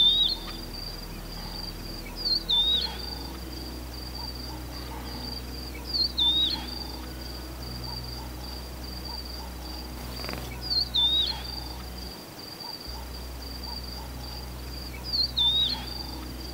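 Rufous-naped lark singing: a short whistled phrase that falls and then lifts, repeated about every four seconds, five times in all.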